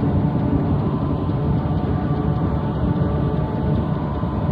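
Industrial noise music: a dense, steady low rumble with faint held tones inside it, dull and without any high end, as played off an old cassette tape.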